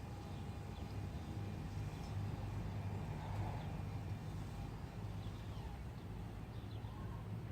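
Garage door opener motor running with a steady low hum as it drives the gate, with birds chirping faintly.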